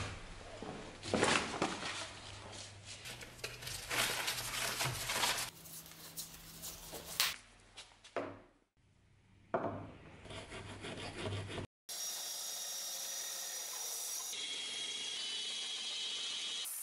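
Sandpaper rubbed in uneven strokes along a steel dagger blade. About twelve seconds in, it gives way to a band saw running steadily as a walnut block is fed into its blade.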